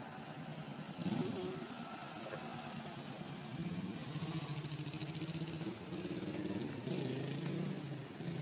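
A vehicle engine running, starting about a second in, its pitch holding for a second or two at a time, then stepping up or down.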